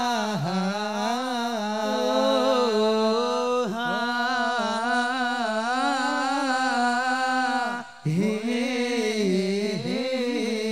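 Man singing a long, ornamented sholawat melody into a microphone, in three drawn-out phrases with short breaths about 4 and 8 seconds in.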